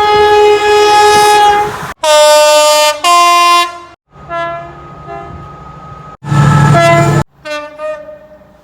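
A run of different British diesel train horns cut abruptly one after another. Loud steady blasts, one a high note dropping to a low note, alternate with a fainter horn over a low engine drone. Near the end a horn fades away.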